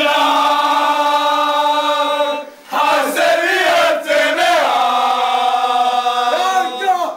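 A group of young men singing a football club song together, loud and in unison. They hold one long note for about two and a half seconds, break off briefly, then go on singing a moving tune.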